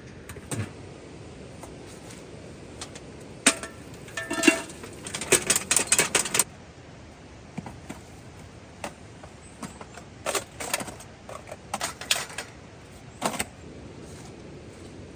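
Small metal objects clinking and rattling as they are handled, in irregular bursts of clatter with brief metallic ringing. The clatter comes in two busy spells, the first and loudest a few seconds in and the second near the end, over a steady background hiss.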